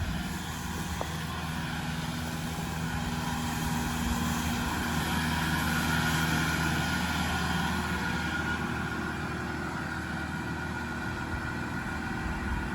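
Diesel engine of a Kubota excavator running steadily, growing somewhat louder for a few seconds midway before easing back.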